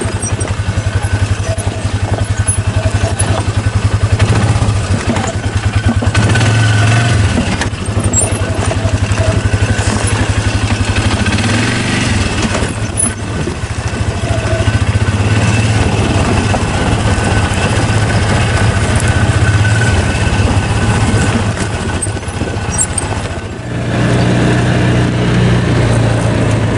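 Side-by-side UTV engine running as the vehicle drives along a rough dirt trail: a loud, steady low drone that dips briefly a couple of times.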